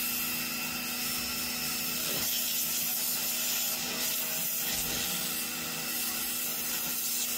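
Total TGT11356 1800 W electric pressure washer running, its high-pressure jet hissing steadily against a motorcycle's spoked front wheel and tyre, with a steady hum from the machine underneath.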